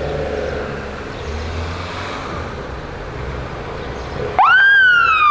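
Engines of a slow-moving gendarmerie motorcade, motorcycles and patrol vehicles, running with a low rumble; a little over four seconds in a siren cuts in loudly, sweeping up fast and then sliding slowly down in pitch.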